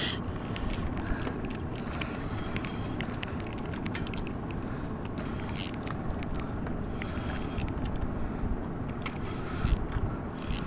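Steady rushing wind and sea noise on a small fishing boat, with scattered light clicks and taps from fishing tackle while a hooked fish is played.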